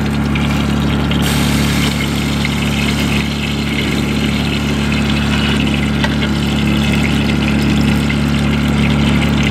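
An engine idling, a steady low hum of constant pitch. About a second in, a higher hiss joins it.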